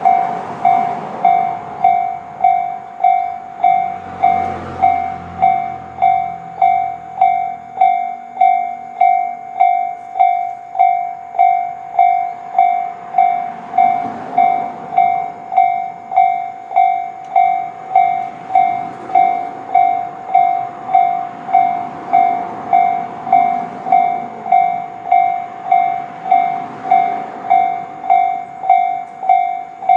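Japanese railway level-crossing warning bells of the Tobu 'sound C' slow-tempo type, ringing a steady electronic ding at about one and a half strikes a second. A low hum runs under the bells from about four to eight seconds in.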